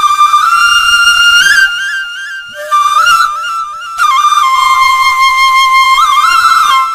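Bamboo flute (bansuri) playing a slow, mournful melody of held notes with small ornamental turns. The tune drops quieter for about two seconds partway through, then comes back at full strength.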